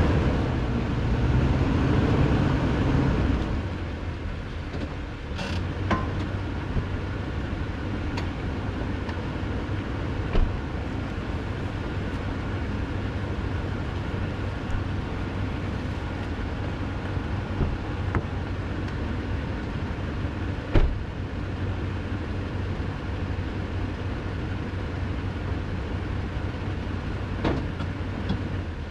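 Toyota Tundra V8 engine running, louder for the first few seconds, then settling to a low, steady run. A handful of short, sharp knocks sound over it, the loudest about two-thirds of the way through.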